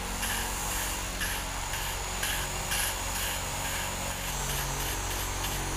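Flexible-shaft porting grinder running steadily, spinning an intake/exhaust valve against its seat in a motorcycle cylinder head to lap it with fine valve-grinding paste. A gritty rasp from the paste pulses about twice a second over the motor's hum.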